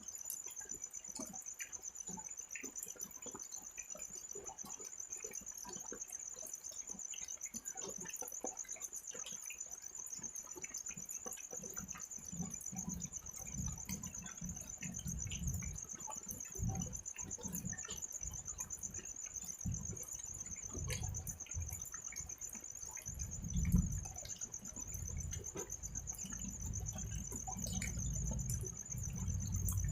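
Crickets trilling steadily in a continuous high-pitched buzz, over light drizzle with scattered ticks of drops. From about halfway a low rumble comes and goes, growing stronger near the end.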